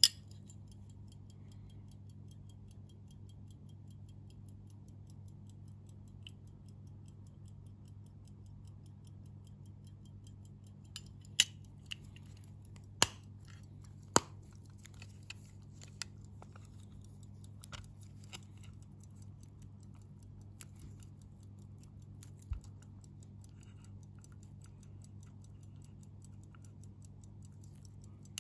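Antique silver full-hunter pocket watch ticking faintly and steadily, with a sharp click right at the start and three loud snapping clicks a little over halfway through as its hinged case covers are snapped shut and opened.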